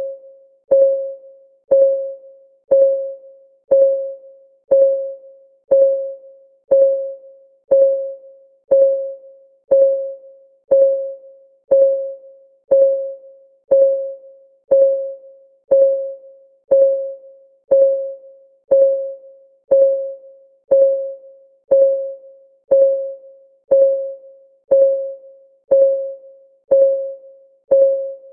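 Countdown timer's clock-ticking sound effect, one tick each second, steady and even. Each tick is a sharp click with a short, mid-pitched ring that dies away quickly.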